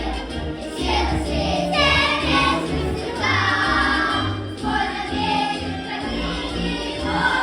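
Children's choir singing in unison over an instrumental accompaniment with a steady bass line.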